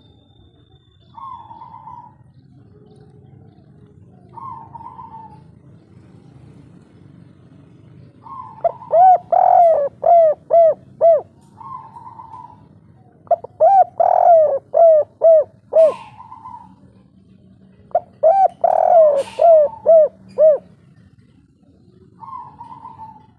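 Spotted dove cooing in the song type that keepers call 'kuk 3': three loud phrases, each a quick run of about seven coos, a few seconds apart. Fainter short higher notes sound between them.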